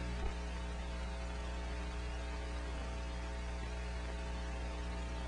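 Steady electrical hum with an even hiss on an old soundtrack, with no other sound.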